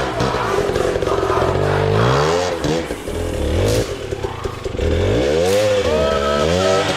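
Two-stroke 300 cc enduro dirt bike engine revving up and down several times under load, with a few sharp knocks.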